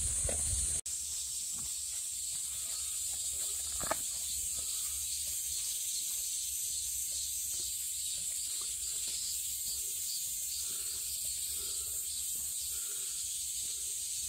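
Steady high-pitched drone of insects, unbroken except for a brief cut just under a second in, with one soft knock around four seconds.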